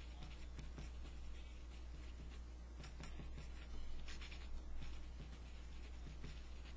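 Pen writing on a paper worksheet: short scratchy strokes, a few louder ones about three and four seconds in, over a steady low hum.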